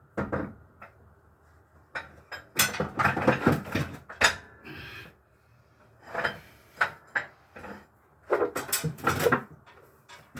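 Hand tools and steel gearbox parts of a Ford Pampa 4x4 transmission clinking and knocking together, in four short bursts of clanks with pauses between.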